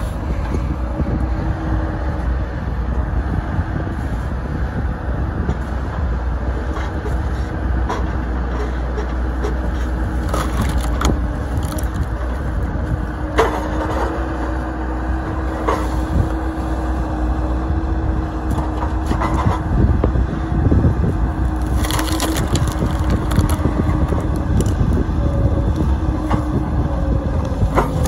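Bobcat skid-steer engine running steadily while its homemade hydraulic overhead splitter drives a welded wedge down into big log rounds. The wood gives sharp cracks every few seconds as it splits.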